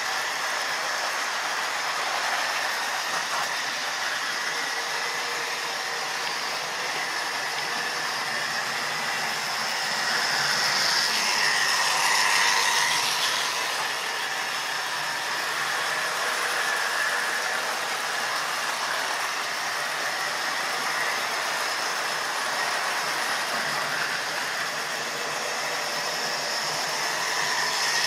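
OO gauge model train running round the layout: a steady whirr of the locomotive's small electric motor with the coaches' wheels running on the track. It gets louder as the train passes close by, around ten to thirteen seconds in and again near the end.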